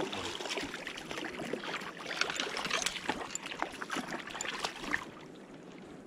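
Water splashing and trickling, with many small sharp clicks and knocks, easing off about five seconds in.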